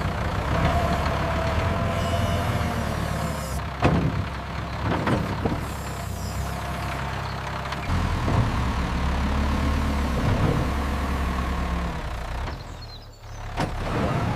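Telehandler engine running steadily under load while the boom is lowered, with a faint hydraulic whine over it. There are a few clanks about four and five seconds in.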